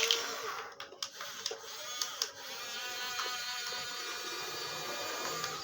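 Small electric motor of a toy excavator whirring steadily, with a few short clicks in the first couple of seconds.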